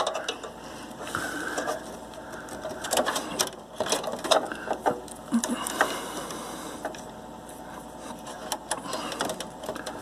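Hands handling hard-drive cables inside a desktop computer case: rustling and irregular small clicks as the SATA power and data connectors are pulled over and pushed onto the drive.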